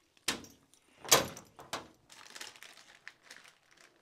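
Two sharp clunks from a horse float's side door and latch being worked, the second, about a second in, the louder. Then a run of softer clicks and rustling.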